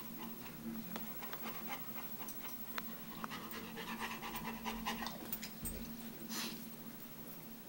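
A dog panting softly in quick breaths, a little louder about four to five seconds in, over a faint steady hum.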